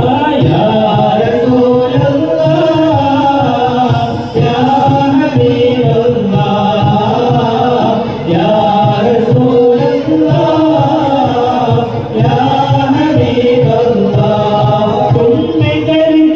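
A group of men singing a devotional song together into microphones, chanted in unison without a break.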